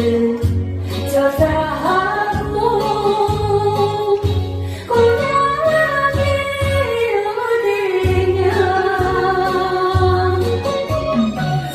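A woman singing a Korean trot song over a backing track, with long held notes above a steady bass beat.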